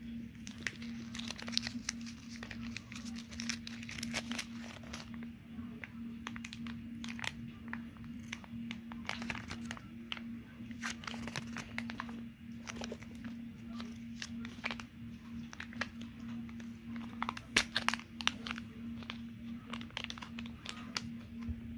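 Irregular crinkling and crackling of a Kinder Joy egg's plastic shell and foil seal being handled and the foil lid peeled back from the treat half. A steady low hum runs underneath.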